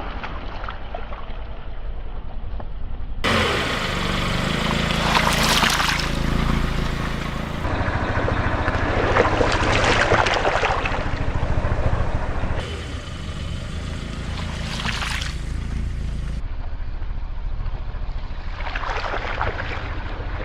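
A car tire slowly rolling over blocks of floral foam and crushing them, with a crackly crunching about four times over a steady low rumble from the car.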